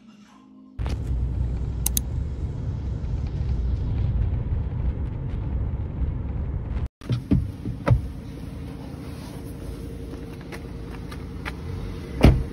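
Low road and engine rumble inside a moving car's cabin. After a cut about seven seconds in, a quieter outdoor background follows with a few thumps, the loudest near the end.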